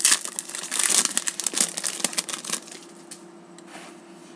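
Foil trading-card pack wrapper being opened and crumpled by hand: dense crinkling for about two and a half seconds, then dying down to a faint rustle.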